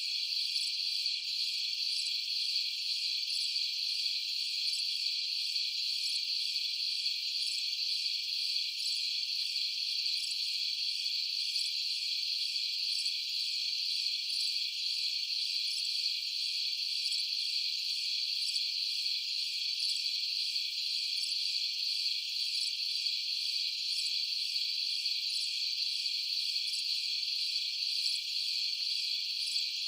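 Dense, steady, high-pitched chorus of night insects, crickets chirping together with no break.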